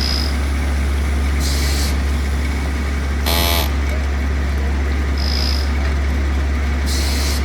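Downtown street traffic with a steady low engine rumble. Two short hisses, two short high beeps about five seconds apart, and a brief squeal with bending pitch about three seconds in.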